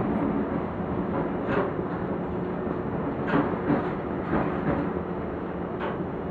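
Keio electric commuter train running at low speed, heard from inside the front car: a steady rumble of wheels on rail with a few irregularly spaced clacks as the wheels pass over rail joints and switches.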